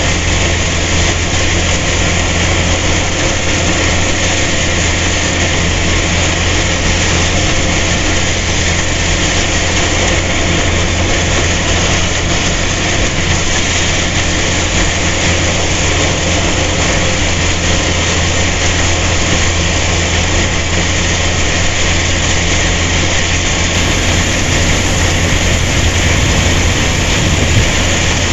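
Rice harvesting machine running steadily: a loud engine hum at a constant speed under continuous machinery noise.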